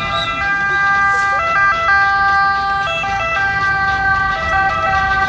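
Italian ambulance two-tone siren, its notes stepping between high and low pitches, over the low rumble of engines in stop-and-go traffic.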